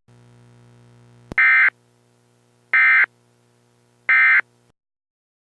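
Emergency Alert System end-of-message signal: three short, identical, harsh electronic data bursts about a second apart, which mark the end of the alert. They come after a faint steady hum and a click.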